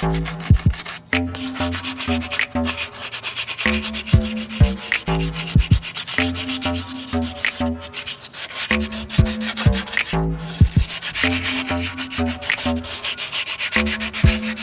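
Sandpaper rubbed by hand over a car's brake caliper in quick scraping strokes, to key the surface before painting. Under it runs background music with a repeating bass line.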